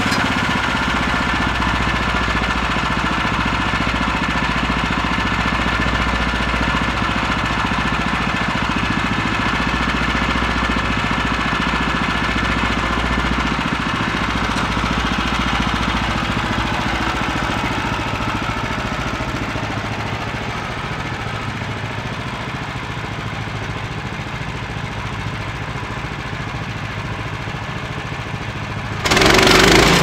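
Woodland Mills portable bandsaw sawmill's gasoline engine running steadily. It fades a little over the second half, then gets suddenly louder about a second before the end.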